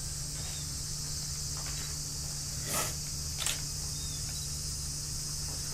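Steady, high-pitched drone of a summer cicada chorus, with a steady low hum beneath it and a couple of faint knocks about three seconds in.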